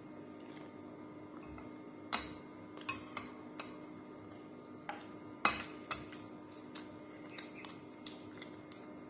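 Metal spoon clinking against a glass bowl of dipping sauce: a string of sharp clinks over a few seconds, the loudest about halfway through, followed by a few lighter ticks.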